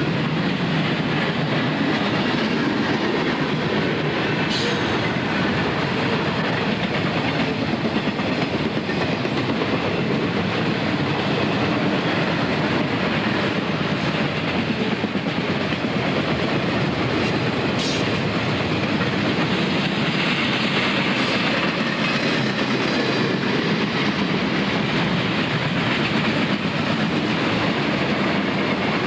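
A freight train's cars rolling past at close range: a steady rumble of wheels on rail with clickety-clack from the rail joints. Two brief high squeaks come about four and a half seconds in and again near eighteen seconds.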